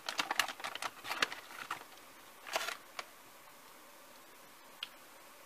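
Crinkling of a potato chip bag as a hand rummages inside it for a chip: a run of sharp crackles over the first two seconds, one more rustle about two and a half seconds in, then quiet.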